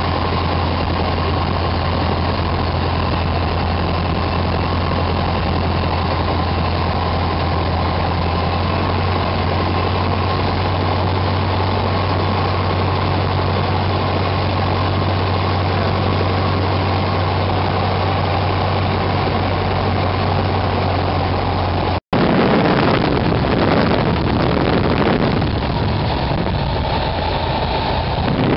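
Light aircraft's piston engine droning steadily in flight, heard from inside the cockpit. After a short cut about three-quarters of the way through, the steady low hum gives way to a louder, uneven rush of wind, with the engine throttled back for landing.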